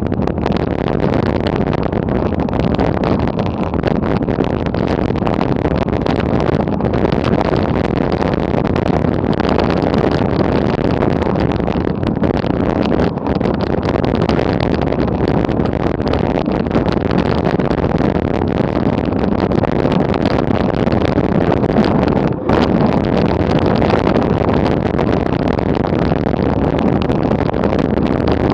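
Mountain bike coasting fast downhill on a loose gravel track: tyres rolling and crunching over stones, the bike clattering over the bumps, with wind on the microphone. A steady loud rush with constant small clicks.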